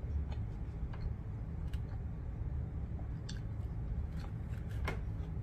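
Quiet chewing with a few scattered small clicks, and a plastic spoon scraping and scooping in an aluminium foil tray near the end, over a steady low hum.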